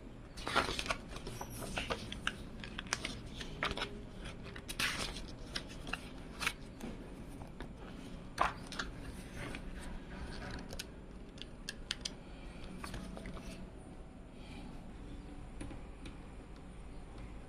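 Handling noises of a PC case being unboxed: scattered clicks, taps and short rustles of packaging, busiest in the first ten seconds and sparser after that, over a steady low hum.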